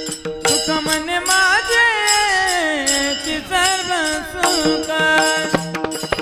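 Indian devotional bhajan music: a male voice draws out a long wordless line that waves up and down in pitch, over steady held accompaniment notes and regular drum strokes.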